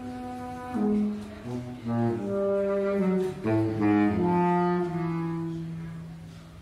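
Saxophones with a tango ensemble playing slow sustained chords that change about once a second, ending on a long low held note that fades.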